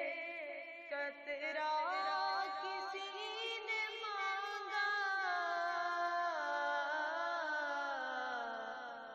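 Unaccompanied voice chanting a slow melody, holding long notes that slide from one pitch to the next and sink lower near the end.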